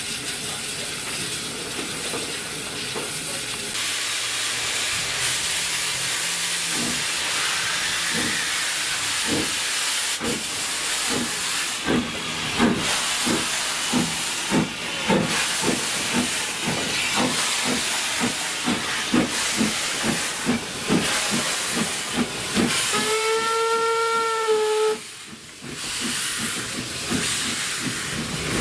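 Steam locomotive pulling away: a steady steam hiss, then exhaust chuffs that start about seven seconds in and come steadily faster. Near the end a steam whistle sounds once for about two seconds, and the chuffing then carries on.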